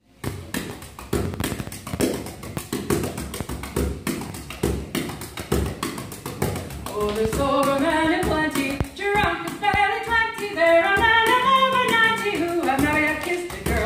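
Irish traditional band playing: bodhrán beats and strummed guitar and other fretted strings set up a steady rhythm, and about seven seconds in a melody line comes in over them.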